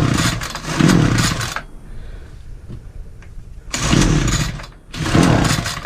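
Petrol strimmer engine being pull-started: several pulls of the recoil cord, each a second or so of cranking, with the engine not catching and running. The machine is hard to start despite having spark and compression.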